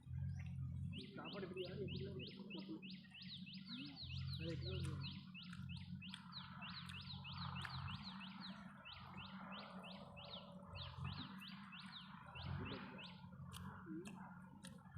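A bird calling a long rapid series of short, high, repeated notes, about four a second, for some twelve seconds with a couple of brief breaks; a low hum comes and goes underneath.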